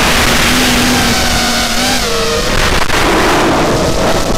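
Armattan F1-4B racing quadcopter's motors and propellers whining, with wind rushing over the onboard camera's microphone. The whine's pitch rises and falls with the throttle and drops about two seconds in.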